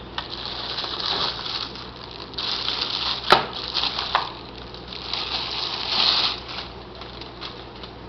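Plastic packaging bags crinkling and rustling in three bursts as they are handled and lifted out of a cardboard box, with one sharp click a little over three seconds in.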